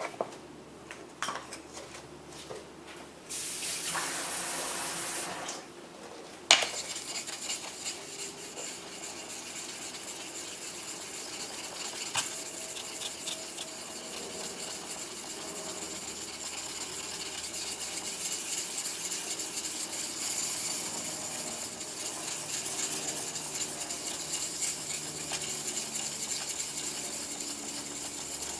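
A single-bevel yanagiba knife blade being ground back and forth on a wet 500-grit whetstone, a continuous scraping that runs through most of the stretch. It opens with a few handling clicks, a brief rush of water about three seconds in, and a sharp knock about six seconds in.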